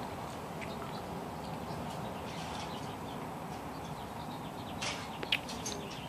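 Steady low background hiss, with a few faint clicks and short bird chirps near the end.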